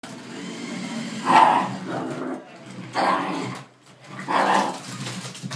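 Jack Russell terrier growling steadily, breaking into three loud barks about one and a half seconds apart.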